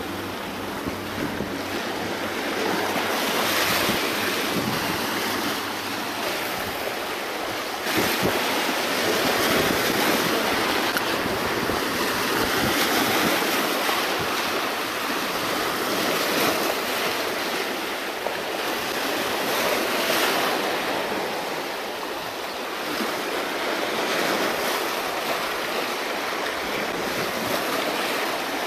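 Sea waves breaking and washing over the boulders of a rock jetty, swelling and ebbing every few seconds, with a sudden surge about eight seconds in.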